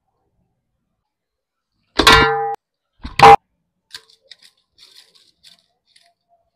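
Two ringing metal clangs of kitchenware about a second apart, the first cut off short and the second the loudest. They are followed by faint light ticks of salt sprinkled over raw mutton in a steel bowl.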